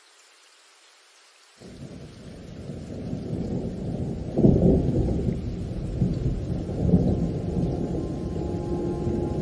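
After a faint hiss, a deep thunder-like rumble comes in suddenly about one and a half seconds in and swells, with two louder rolls midway: the opening of a cinematic background music track.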